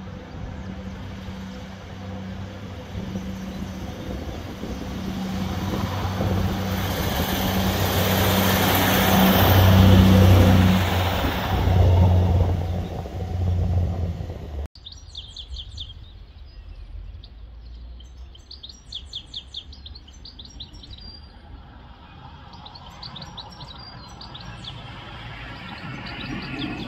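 A diesel multiple-unit passenger train approaching and passing beneath, its engine drone and wheel-on-rail noise growing louder to a peak about ten seconds in, then cutting off suddenly. After that, small birds chirping and singing over a quiet background.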